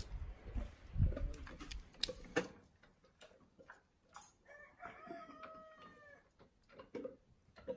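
A single drawn-out animal call lasting about two seconds, a little past the middle, falling slightly in pitch at the end. It follows a run of knocks and low thumps in the first couple of seconds, and a few more knocks come near the end.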